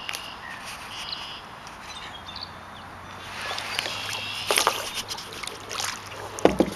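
Hand-paddling a small barrel-pontoon catamaran: several paddle strokes splash and knock in the water, the loudest near the end, with short bird chirps in the background.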